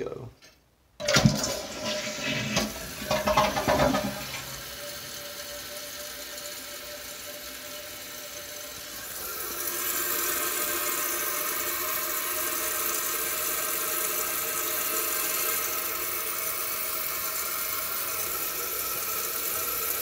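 2012 Kohler Cimarron toilet flushing with its tank lid off: a sudden rush of water draining from the tank about a second in, easing after a few seconds into a steady hiss of the tank refilling that grows louder and brighter about ten seconds in.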